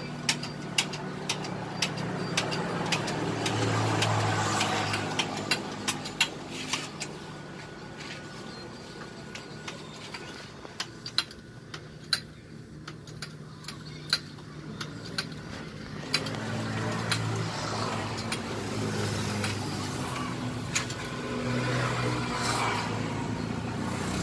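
Hydraulic bottle jack on a homemade press being pumped by its handle, giving sharp metallic clicks, two or three a second at first and sparser later. Under them an engine runs steadily, now louder and now softer.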